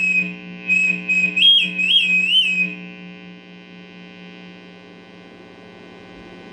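A high, thin electronic tone plays a short tune, stepping up in pitch and back down three times, then cuts off about three seconds in. A steady low electrical hum runs underneath.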